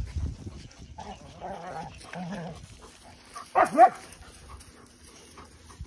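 Young dogs playing, one giving a single short, loud bark about three and a half seconds in, with fainter dog sounds before it.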